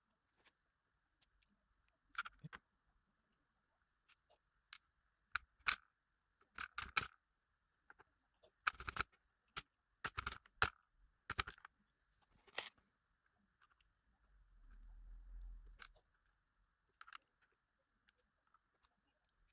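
Small metal parts of a gutted Paclock 90A-Pro padlock clicking and tapping at irregular intervals as its key pins are taken out. A brief low rumble of handling comes about two-thirds of the way through.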